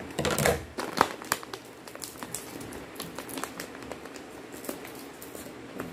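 Clear plastic snack bag crinkling as crispy fried chicken-intestine chips are poured out of it onto a plate. A louder rustle comes first, with a sharp click about a second in, then many light, scattered ticks of the chips.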